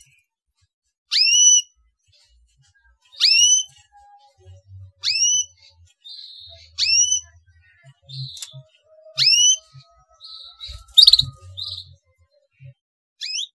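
A 'cuit cuit' chirp call: the same short, rising whistled chirp is repeated about every one to two seconds. Softer twittering comes between the chirps, and a sharper chirp sounds about eleven seconds in. The chirps are a stimulus sound used to get young canaries singing.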